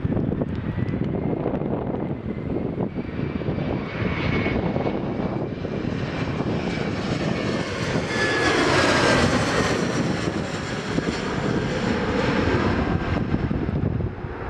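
Turbofan engines of an Embraer E-Jet regional airliner on landing approach, passing low overhead: a steady jet roar with a thin whine that swells to its loudest about eight to ten seconds in, its pitch dropping as the aircraft goes by.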